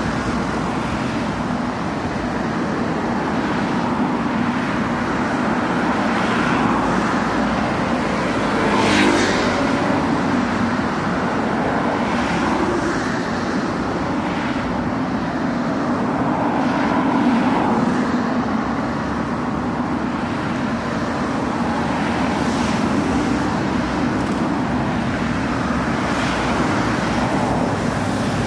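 Road traffic: motor vehicle engines running and passing in a steady wash of traffic noise, with a short sharp knock about nine seconds in.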